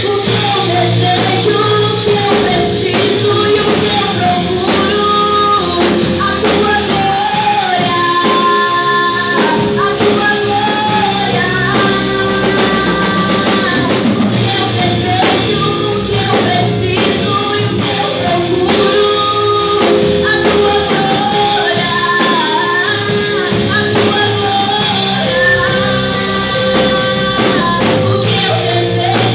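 Live gospel worship band playing an instrumental passage between sung lines, with drum kit and guitar under a gliding melodic lead line.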